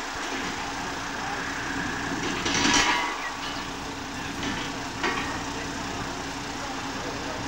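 Diesel engine of a lorry-mounted crane running steadily as it holds a helicopter on its hook, with a brief louder rush of noise about two and a half seconds in and a sharp click about five seconds in.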